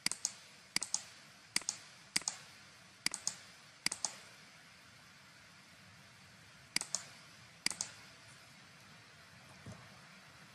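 Computer mouse button clicked about eight times, each click a quick double tick of press and release: six in the first four seconds, then two more a few seconds later.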